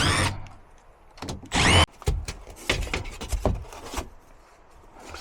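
Cordless drill-driver running in two short bursts, its motor pitch sweeping as it spins up and down, followed by a scatter of clicks and knocks.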